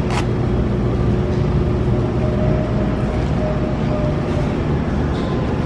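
Steady low rumble of grocery-store background noise, with a faint steady tone partway through.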